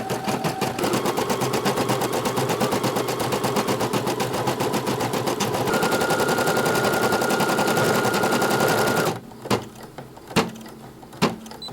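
Home embroidery machine stitching, its needle striking in a fast, even rhythm. It stops abruptly about nine seconds in as it finishes the current thread colour, and a few single clicks follow.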